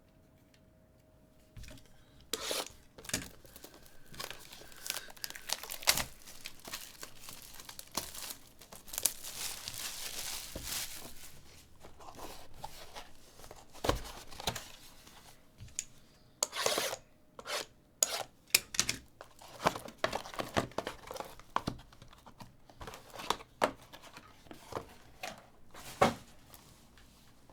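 Plastic wrapping and packaging on trading-card boxes and packs being torn open and crinkled in a run of short rips and crackles, starting about two seconds in.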